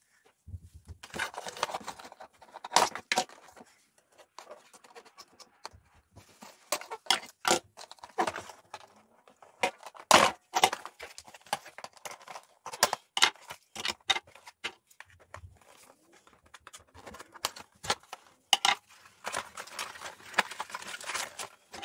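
A Nerf Alpha Strike Stinger SD-1 four-pack box of card and plastic being cut open with scissors and pulled apart. Rustling, scraping and a string of sharp clicks and knocks come as the plastic blasters are freed and set down on a wooden table.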